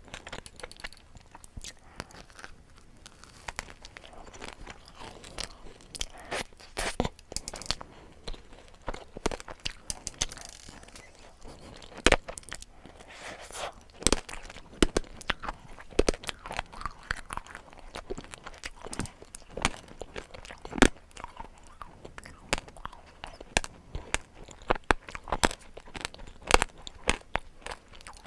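Close-miked ASMR eating of sweets: crisp crunching bites and chewing, in irregular sharp crunches, with the loudest bites about 12, 14 and 21 seconds in.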